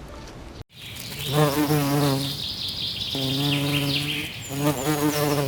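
Insect buzzing in three stretches of about a second each, at a steady low pitch, over a high hiss.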